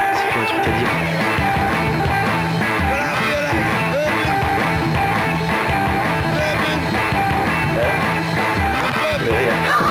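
Rock music playing.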